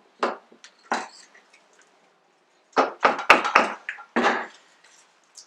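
Knocks and clatter from the greasy joint of a Nissan 5-bolt CV axle being worked off its shaft by hand: two single knocks, then a quick run of loud ones about three seconds in.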